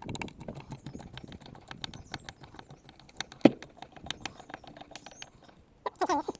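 Irregular small clicks and taps of screws being worked out of a wooden shipping crate, with one sharp knock about three and a half seconds in. Near the end a short wavering squeal begins.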